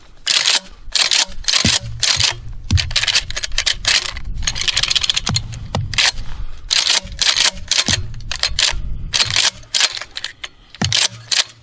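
Remington 870 pump-action shotgun racked over and over, its slide clacking back and forth as 12-gauge mini shells are cycled through and ejected. The mini shells hang up a little as they feed.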